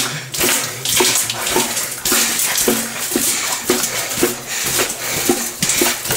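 Footsteps wading through shallow water in a narrow tunnel: boots splashing and squelching in a steady walking rhythm, roughly one to two steps a second.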